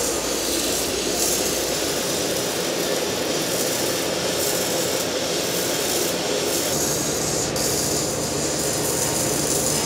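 Wire-feed (MIG) welding arc running steadily on thick steel plate, with a slight change in tone about seven seconds in.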